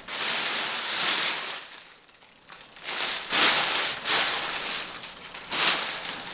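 Clear plastic packing sheet crinkling as it is handled, in bursts: a long one at first, a lull about two seconds in, then a louder burst and a short one near the end.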